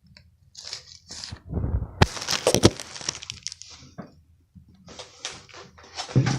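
Close-up handling noises: short rustles with sharp clicks and cracks about two seconds in, and a low thump near the end.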